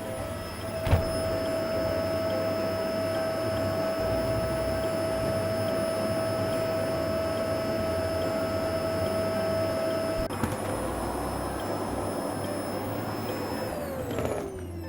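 Vacuum cleaner running steadily with a high whine over its rushing air noise, with a sharp knock about a second in. Near the end it is switched off and the motor's whine falls in pitch as it spins down.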